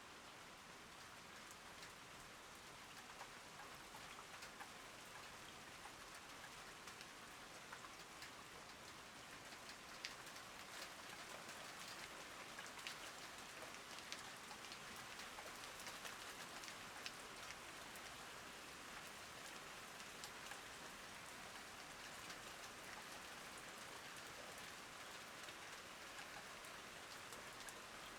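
Steady rain falling on garden plants, an even hiss dotted with many sharp ticks of single drops hitting leaves; it grows slightly louder about ten seconds in.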